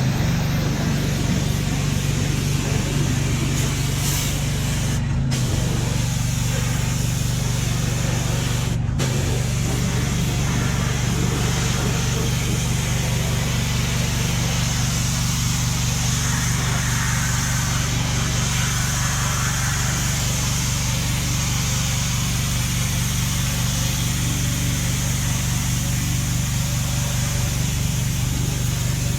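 Pressure washer running steadily, its motor humming under the hiss of the high-pressure water jet, cleaning the body of a 1977 Datsun pickup. The sound cuts out very briefly twice in the first ten seconds.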